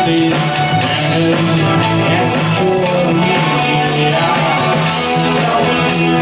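Live rock band playing a cover, with a lead singer, electric guitars and bass over a steady drum beat, heard through the PA.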